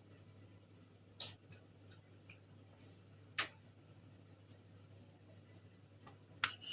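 A few sharp, scattered clicks over a faint low hum.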